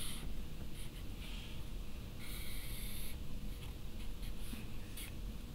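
Sharpie permanent marker dragged across paper in a few strokes, drawing straight lines: a scratchy hiss, the longest stroke about a second long around two seconds in, with shorter ones before and after.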